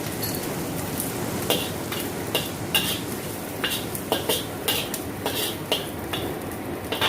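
Prawns stir-frying in a hot pan, a steady sizzle under the repeated scrapes and clicks of a spatula stirring against the pan at irregular intervals of about half a second.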